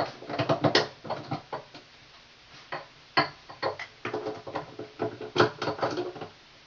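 Music playing, with a run of separate pitched notes from a keyboard-like instrument.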